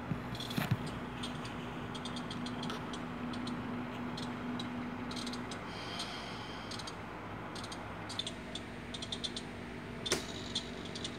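HO-scale model diesel locomotive and coaches running on track: a steady motor hum with clusters of quick light clicks from the wheels on the rails. The hum drops out partway and comes back, and there is a sharper click near the end.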